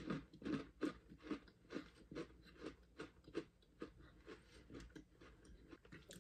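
Close-up chewing of a crunchy chocolate cookie with vanilla cream filling (Costa Frac Vanilla): a regular crunch about three times a second. The crunches grow fainter and sparser after about four seconds.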